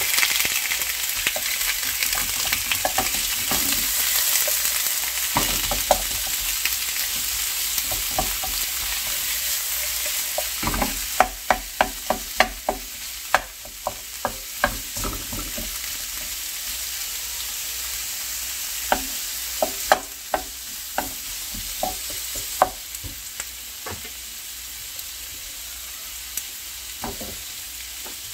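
Strips of bigfin reef squid sizzling in a hot nonstick frying pan. The sizzle is strongest at first and eases off after about ten seconds. From about eleven seconds in, a utensil clicks and taps against the pan in quick runs as the squid is stirred.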